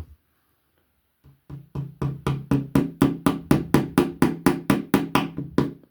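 Rapid, even tapping, about five knocks a second, with a short ring after each: a small pin being tapped into the hollow axle of a diecast toy car against a tabletop. It starts about a second in and stops just before the end.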